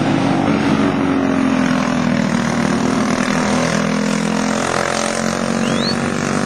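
Several racing go-kart engines running together around a dirt track, their overlapping drones shifting up and down in pitch as the karts accelerate and back off.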